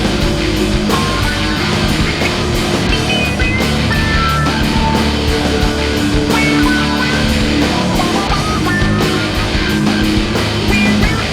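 Rock music with distorted electric guitar and drums over a steady fast beat.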